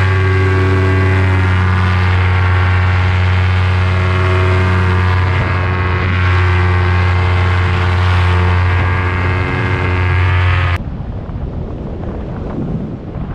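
Paramotor engine and propeller running at a steady throttle in flight, one even drone. About three-quarters of the way in the engine sound cuts off suddenly, leaving wind rushing over the microphone.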